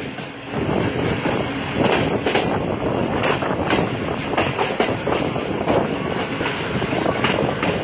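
Pakistan Railways express passenger coach running along the track, heard from an open window: a steady rumble of wheels on rail with irregular sharp clicks as the wheels pass over rail joints.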